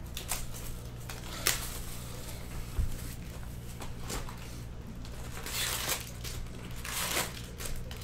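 Plastic shrink-wrap crinkling and tearing as it is stripped off a cardboard trading-card box, with a sharp click about a second and a half in and louder rustles near the end as the box is opened.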